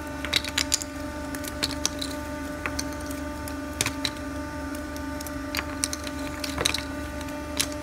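30-ton jigsaw puzzle die-cutting press running with a steady machine hum. About a dozen sharp clicks and snaps come at irregular moments.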